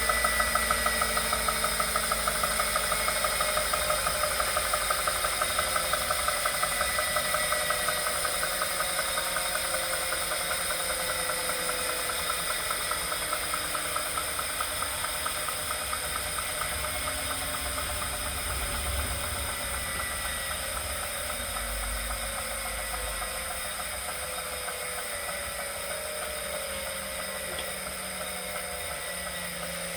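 Wahoo Kickr Core smart trainer's flywheel spinning down. It makes a whine that slowly falls in pitch, with a rhythmic knock that gradually slows and fades. This whining and knocking is the unwanted noise the trainer is making.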